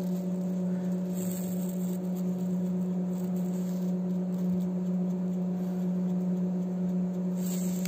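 Steady low hum: one unchanging tone with a few overtones above it.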